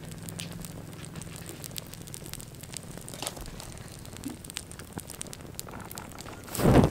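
Small flames on a toy car crackling and popping with scattered sharp snaps. Near the end a loud, low whoosh comes as the fire flares up into a fireball.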